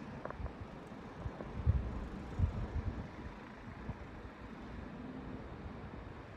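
Car running on the road: a steady low rumble, with a few heavier low thumps about two seconds in.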